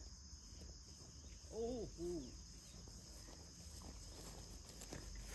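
Steady high-pitched chorus of crickets and other insects, with two short rising-and-falling calls about a second and a half in.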